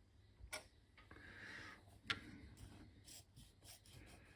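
Faint, sharp clicks, two clear ones about a second and a half apart, from the 8-inch floppy drive's 24 VDC head solenoid (a Koike 147007-02) being switched on 24 volts, its freshly freed plunger now moving smoothly.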